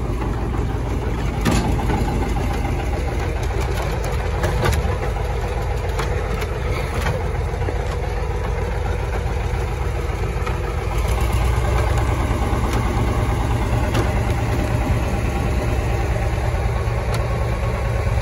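Tractor engine running steadily close by with a low rumble that grows louder about eleven seconds in, as the wagon it pulls moves off, with a few sharp clicks over it.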